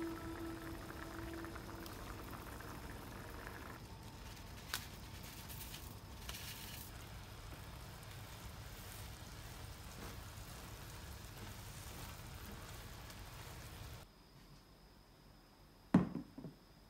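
Black bean sauce simmering and bubbling in a frying pan as instant ramen noodles and rice cakes cook in it, with a single click about five seconds in. Near the end it goes quieter and a plate is set down on a wooden table with a sharp clack.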